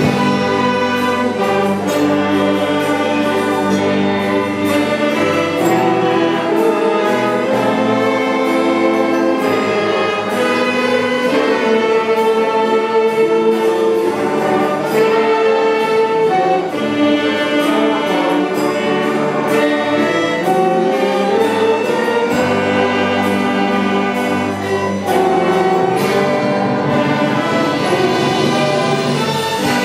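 A school wind band of flutes, saxophones, trumpets and trombones playing an arranged tune, with held, overlapping melody and harmony lines at an even volume throughout.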